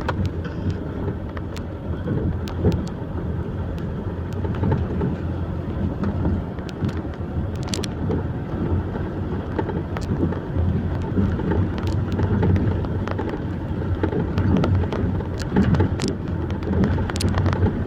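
Logging truck's engine running steadily, with scattered sharp clicks and knocks over it.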